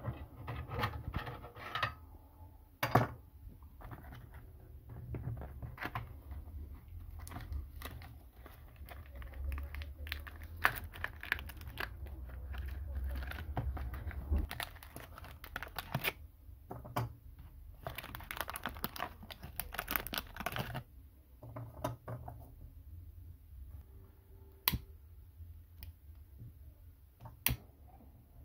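Paper and cardboard packaging of solid fuel tablets rustling, crinkling and tearing as it is opened, with irregular clicks and knocks from handling the small metal burner tray of a toy steam engine.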